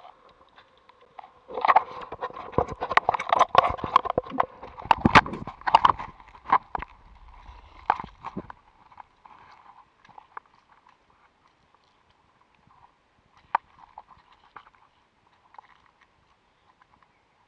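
Water sloshing and knocking against a waterproof action-camera housing in a shallow rock pool, muffled and hollow. A dense run of irregular clatter fills the first half, then only occasional faint ticks and drips.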